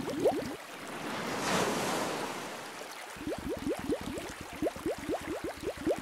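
Aquarium water bubbling in quick, short rising blips, about five a second. About half a second in the bubbling breaks off for a wave-like whoosh that swells and fades over about two seconds, then the bubbling resumes.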